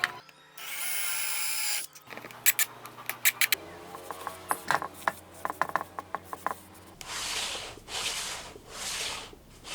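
Workshop tool sounds in short cut-together pieces: a power drill runs for about a second and a half, then a string of sharp clicks and taps. Near the end come slow, even rubbing strokes on wood, about one a second.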